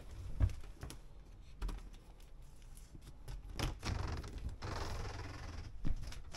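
A curved motorhome shower-cabin door is handled and opened: a few sharp clicks and knocks, then a longer sliding, rustling noise from about three and a half seconds in, ending with a click.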